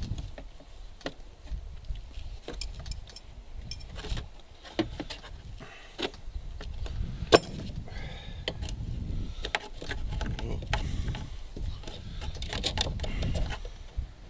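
Wrench clicking and knocking against a tight nickel-plated brass compression nut and the fittings around it as the nut is worked loose, an irregular run of sharp clicks, the loudest about seven seconds in, over a low rumble.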